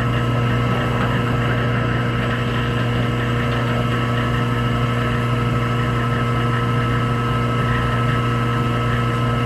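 Drill press motor running steadily, spinning a buffing pad pressed against an aluminum frying pan to polish it: a steady low electric hum with a few higher steady tones.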